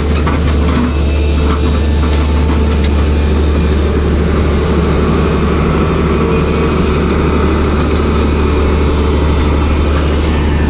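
Tata Hitachi EX200LC crawler excavator's diesel engine running steadily close by: a loud, even low hum with no revving or change in pitch.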